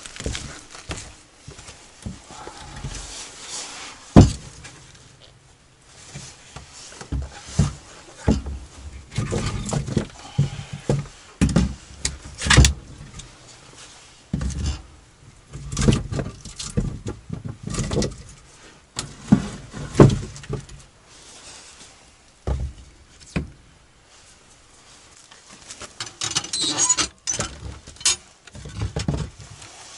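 Irregular wooden knocks and clatters as split kindling and firewood are handled and set down on a plank floor beside a small iron wood stove, with a crackly rustle near the end.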